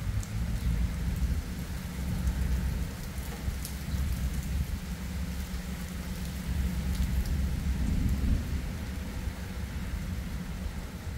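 Steady rain during a thunderstorm, with scattered drops ticking close by over a continuous low rumble.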